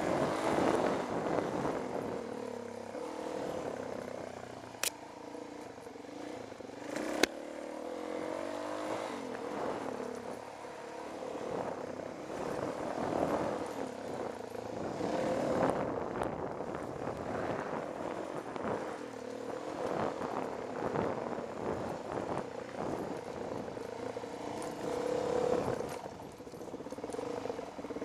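Dirt bike engine running as the bike is ridden over a rough wooded trail, the revs rising and falling with the throttle, with rattling over the bumps. Two sharp clicks stand out, about five and seven seconds in.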